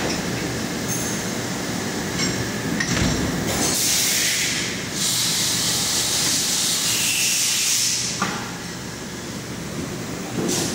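Injection moulding machine running: a steady mechanical drone with a few short clicks, and a long hiss from about four seconds in that lasts around four seconds and stops.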